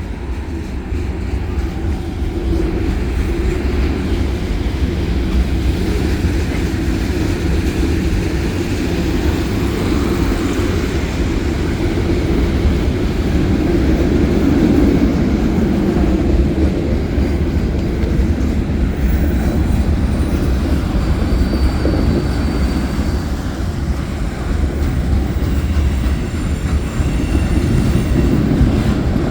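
A CN freight train rolling past, its wheels rumbling and clacking steadily on the rails. A brief high wheel squeal comes about two-thirds of the way through.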